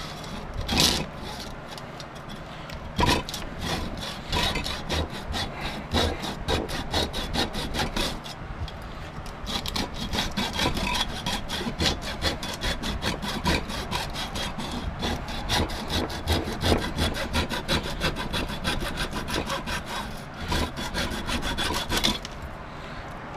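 Hand saw cutting back and forth through a small transformer's core and copper windings, in quick, even strokes. The strokes quicken about eight seconds in and stop near the end.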